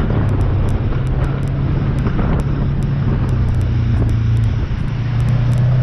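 ATV engine running steadily as the quad rides along a woodland trail. The engine note rises a little near the end.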